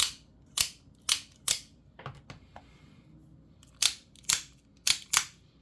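OTF automatic knife fired and retracted repeatedly: eight sharp snaps in two groups of four. Only a brief ring follows each snap, which the owner takes for the cheaply made body vibrating rather than spring sing from the freshly greased springs.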